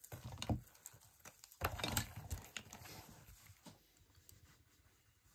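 Cardstock being handled and pressed into place in a card: a few light taps and paper rustles, loudest about two seconds in, then fainter handling.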